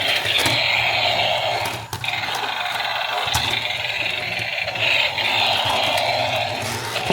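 Small electric motor and plastic gears of a toy RC car whirring steadily, with a brief dip about two seconds in.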